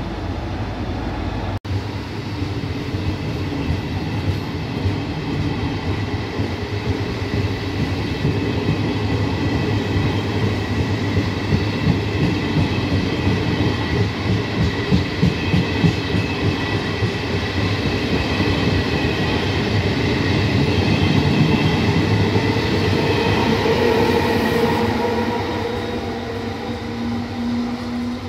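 Intercity passenger train running along the platform, its coach wheels clacking rhythmically over the rail joints amid a steady rumble. Near the end the electric locomotive comes by with a humming tone.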